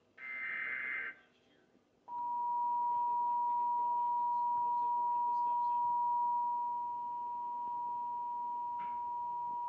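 Emergency Alert System broadcast alert for a severe thunderstorm warning: a second-long buzzy burst of digital header data, a short pause, then a loud, steady alert tone that starts about two seconds in and holds, dipping slightly in level past the middle.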